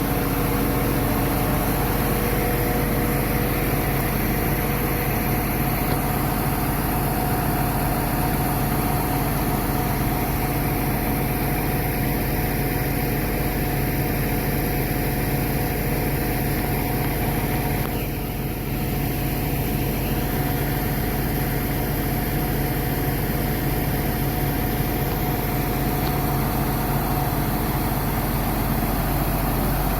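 2006 Al-Jon 580 automobile logger/baler running steadily, its engine and hydraulics giving a low rumble with several steady hum tones and a slight dip near the middle.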